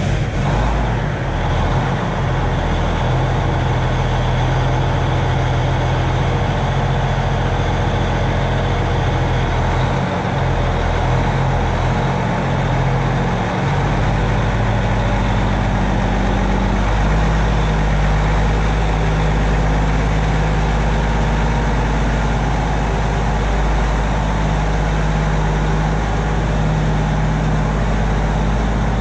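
Heavy diesel engine of farm machinery running steadily just after starting, its engine note shifting slightly about ten seconds in and again near fourteen seconds.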